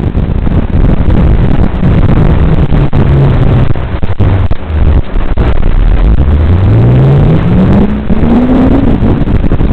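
Loud, steady rumbling noise with a motor-like tone that rises steadily in pitch over the last few seconds, like an engine accelerating.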